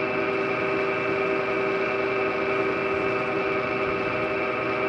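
Vapor blasting cabinet's slurry pump running steadily: a constant mechanical hum with several held tones over a rush of pumped slurry.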